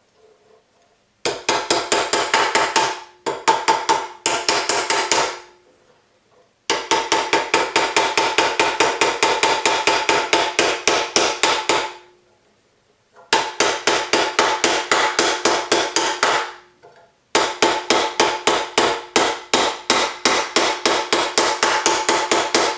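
Rapid blows of a white plastic forming hammer on a reticulation-silver cuff blank over a steel anticlastic forming stake clamped in a vise, bending the metal into a saddle curve. The blows come about five a second in five runs, each run separated by a brief pause, and the stake and silver ring faintly after the blows.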